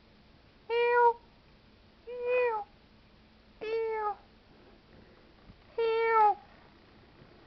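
A cat meowing four times, short calls spaced a second or two apart.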